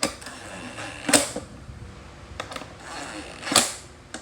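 Sharp clicks and knocks of metal hardware being handled while bolting parts onto a gas pressure washer's frame. Three louder clicks come at the start, about a second in and near the end, with small ticks between them.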